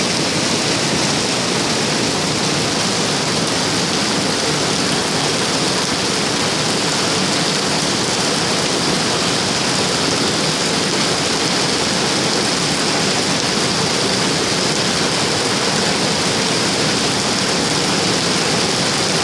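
Rain falling steadily, a loud even hiss that does not let up.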